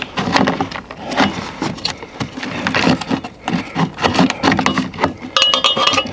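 Hard plastic caravan jack pad being pushed, wiggled and knocked against the steel foot of a corner steady and shuffled on gravel: a run of irregular clicks, knocks and scrapes.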